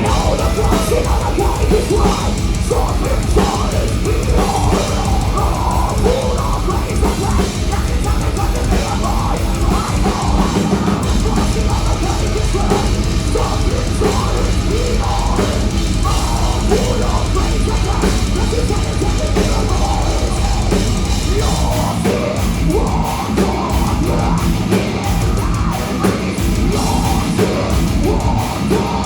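Live heavy metal band playing loud, with a pounding drum kit and dense distorted guitar and bass.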